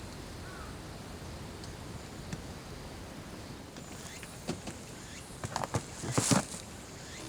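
Steady outdoor background noise, then a scatter of light clicks and knocks in the second half, with a short rustle a little before the end.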